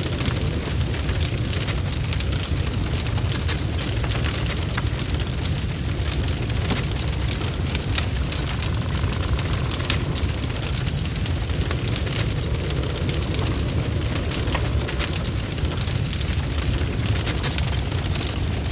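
Bonfire burning: a steady low rumble of flames with frequent, irregular sharp crackles and pops from the burning wood.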